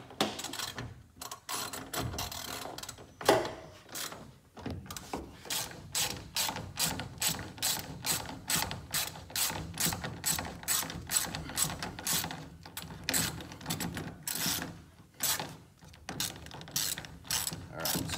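Hand ratchet wrench clicking as a nut is tightened down on a bolt, a few irregular clicks at first, then a steady run of about two strokes a second.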